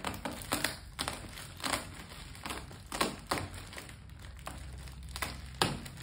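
Knife slitting open a parcel wrapped in black plastic and clear packing tape: irregular scratchy crinkling and tearing of the plastic film and tape.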